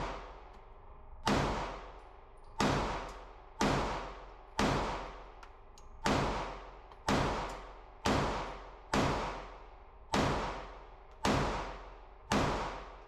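Smith & Wesson Shield Plus micro-compact pistol fired in a slow, steady string of about eleven shots, roughly one a second, each shot followed by a short reverberant tail off the walls of an indoor range lane.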